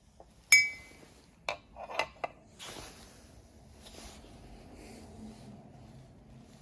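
A sharp clink of hard objects with a short ringing tone about half a second in, then three lighter clicks and knocks, followed by a brief scraping rustle.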